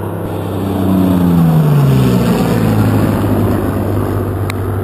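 A Spitfire and an F-16 flying past together in formation: a pitched piston-engine drone from the Spitfire drops in pitch as the pair passes, over the broad, steady noise of the F-16's jet engine. The sound swells to its loudest about a second and a half in.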